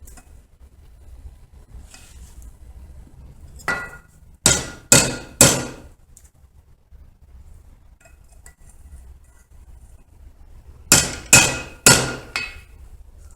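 Blacksmith's hammer striking a hot 3/8-inch square mild steel bar on the anvil, opening a split for a split cross: two quick runs of about four ringing blows each, several seconds apart.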